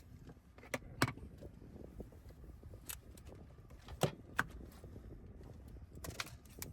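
A handful of sharp clicks and knocks from gear being handled on a small boat, over a steady low rumble of wind on the microphone.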